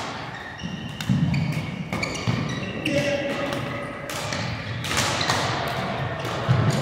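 Badminton rally sounds in an echoing sports hall: sharp cracks of rackets striking the shuttlecock several times, short high squeaks of court shoes on the floor, and heavy thuds of footsteps and lunges.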